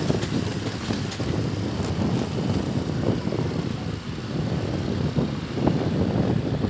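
Vehicle engine running steadily with road noise while travelling along a road, with a few light knocks or rattles in the second half.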